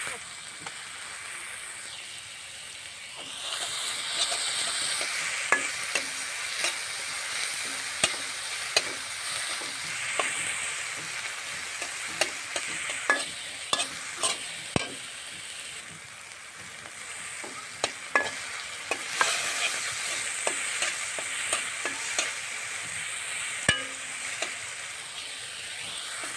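Spice paste frying in oil in a large metal karahi, a steady sizzle, while a metal spatula scrapes and clicks against the pan in irregular strokes as it is stirred.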